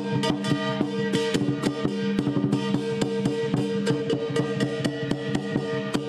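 Traditional lion dance percussion: a drum beaten in a quick, driving rhythm with crashing hand cymbals and a ringing gong.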